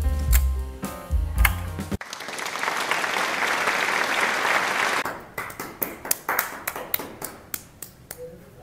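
Background music with a bass line that cuts off abruptly about two seconds in. Applause follows: a dense burst of clapping that thins into scattered single hand claps toward the end.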